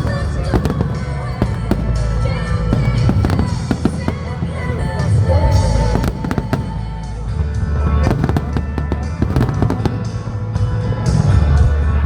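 Fireworks going off in quick succession, sharp cracks and deep booms one after another, over music.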